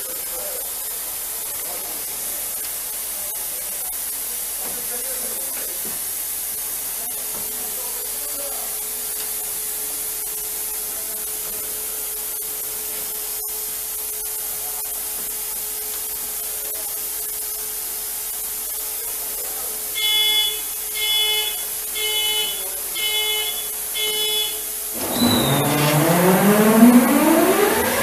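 Steady hiss with a faint steady hum, then five short beeps about a second apart near the end. Right after, the diesel locomotive powers up suddenly and loudly, with a whine rising in pitch as it starts to move.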